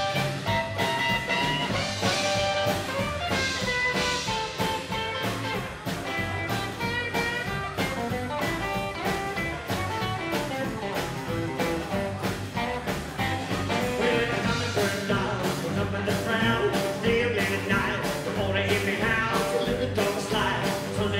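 Rockabilly band playing live: acoustic and electric guitars, upright double bass and drum kit, with a steady beat.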